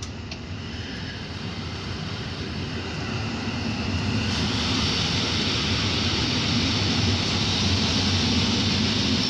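Two coupled EN57AKM electric multiple units rolling into the platform, their running noise and wheel rumble growing louder over the first four seconds or so. After that a steady hiss and rumble continue as the carriages pass close by.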